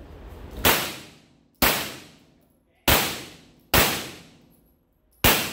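Five shots from a Glock 17L 9mm pistol, fired at uneven intervals a second or so apart during a practical-shooting stage. Each crack rings out into a reverberant tail from the enclosed indoor range.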